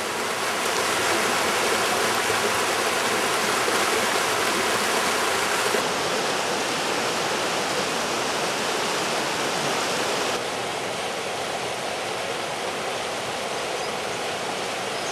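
Mountain stream rushing over rocks, a steady loud water noise that drops a little in level, suddenly, about six and ten seconds in.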